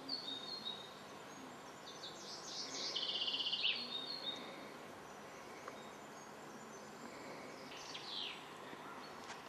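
Woodland songbirds singing: a few short whistles at the start, then a longer song of rapid repeated notes ending in a brighter falling stroke about two to four seconds in, and a short falling phrase near the end, over a faint steady outdoor hiss.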